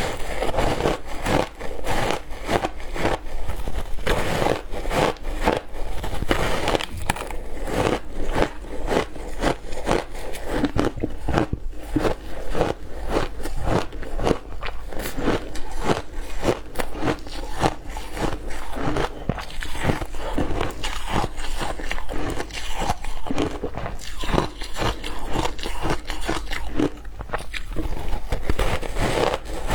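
A person biting and chewing ice close to the microphone: a steady, dense run of crisp crunches and cracks.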